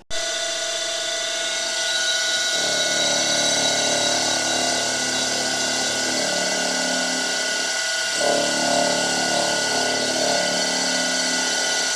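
Milling machine running with a steady whine, its cutter milling the top off picatinny-rail mounts. A lower cutting sound joins a couple of seconds in, breaks off briefly around eight seconds and comes back.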